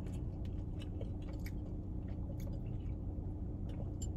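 Sweet tea being sipped through a straw from a glass mason jar: faint mouth and sucking sounds with scattered small clicks, over a steady low hum inside a car.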